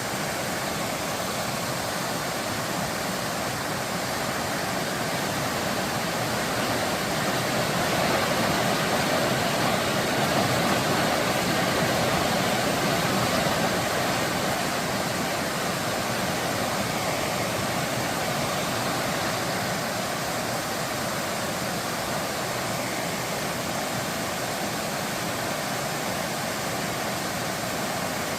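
Mountain valley stream water rushing over rocks, a steady even rush that swells a little for several seconds partway through.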